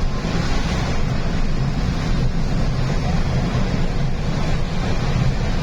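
A vehicle cruising on a highway: a steady low engine drone under even road and wind noise.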